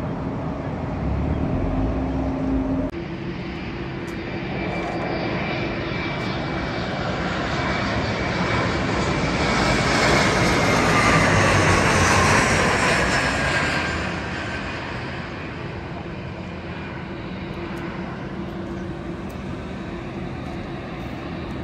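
Jet airliner flying past: the engine noise swells to a peak about ten to thirteen seconds in, with whining tones that fall in pitch as it goes by, then fades away.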